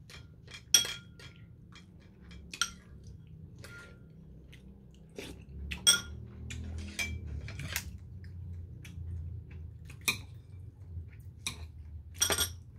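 A metal spoon clinking and scraping against a ceramic bowl of rice soaked in barley tea, about a dozen sharp, ringing clinks spread irregularly, with chewing between them.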